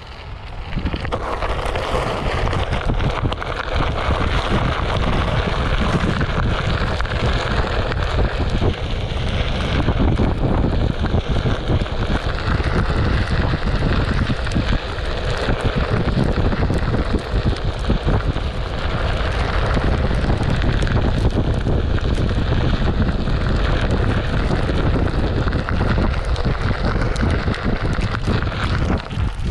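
Wind rushing and buffeting over the microphone of a rider on a moving Onewheel XR electric board off-road: a loud, steady rush with a heavy low rumble, building over the first couple of seconds.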